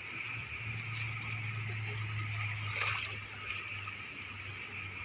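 Shallow stream water trickling and sloshing, with a few light splashes about three seconds in, over a steady low hum.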